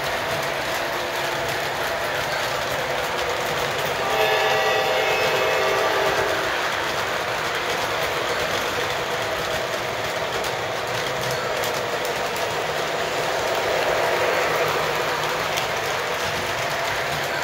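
Model train running on the layout track with a steady rumble and clatter of wheels and motor; about four seconds in, the locomotive's horn sounds for about two seconds. The running sound swells a little near the end as the train passes closer.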